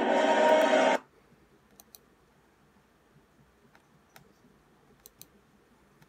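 Animated film soundtrack music playing from a computer, cut off abruptly about a second in, followed by near quiet with scattered faint computer mouse clicks as browser tabs are switched.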